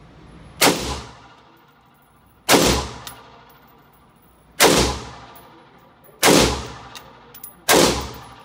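Five single shots from an IWI X95 Tavor bullpup rifle in 5.56/.223, fired one at a time about one and a half to two seconds apart. Each report rings out and decays in the echo of an indoor concrete range.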